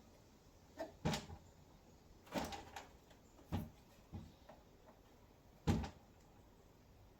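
About five separate knocks and clunks from parts being handled during the fit-out, spread over several seconds; the loudest comes near the end.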